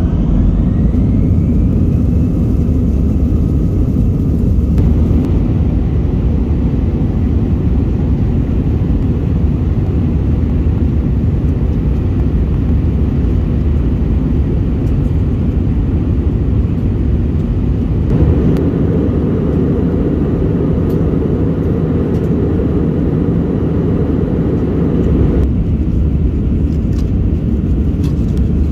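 Airbus A321 cabin noise on the takeoff roll: a loud, steady low rumble of the jet engines and the aircraft running down the runway, with a faint rising whine in the first couple of seconds. The rumble changes tone abruptly a few times.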